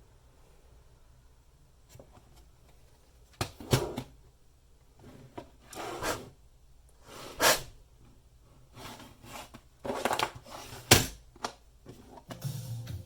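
Several separate clicks and knocks of ThinkPad W520 laptop parts being handled during disassembly, spaced a second or more apart. Background music starts near the end.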